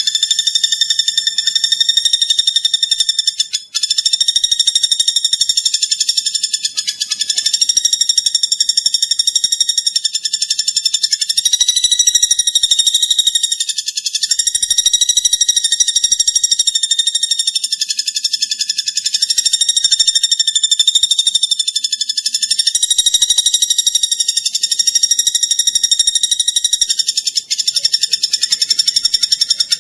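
Recorded song of a platuk bawang used as a masteran: a loud, continuous, high-pitched rapid buzzing trill, pausing only briefly about four seconds in and again near the end.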